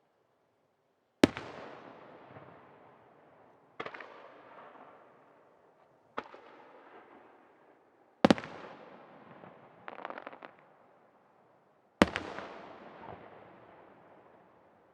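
Aerial firework shells bursting, five sharp booms a few seconds apart, each followed by a long echoing tail. About ten seconds in, a quick run of crackling pops comes between two booms.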